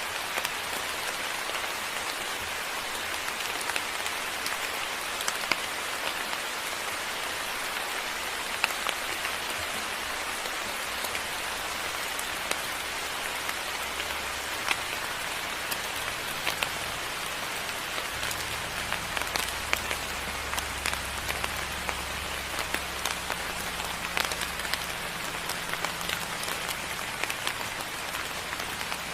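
Steady moderate rain falling, an even hiss dotted with sharp ticks of individual drops. A faint low hum sits underneath in the second half.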